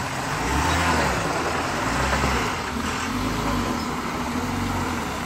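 Tata 3118C truck's diesel engine running, a continuous low rumble.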